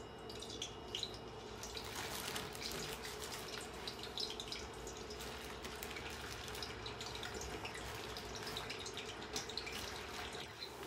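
Tostones (green plantain slices) frying in hot oil: a steady sizzle dotted with small crackles and pops.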